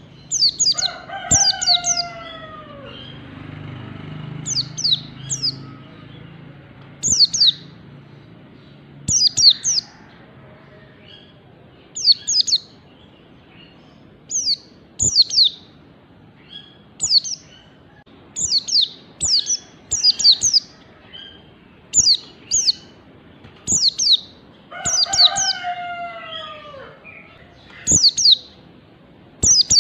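White-eye (pleci) calling: short, sharp, high chirps that sweep downward, in clusters of two or three every second or two. A lower, falling whistled note sounds twice, about a second in and again near the end.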